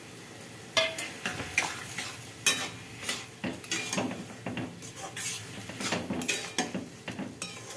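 Metal spatula stirring soft cooked bottle gourd in a metal kadai, with irregular scrapes and clinks against the pan starting about a second in, over a low sizzle.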